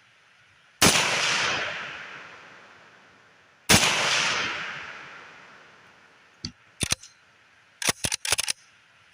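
Two shots from a Universal M1 .30 Carbine about three seconds apart, each ringing out and fading over a couple of seconds. Near the end come several quick metallic clicks and clacks from the rifle being handled.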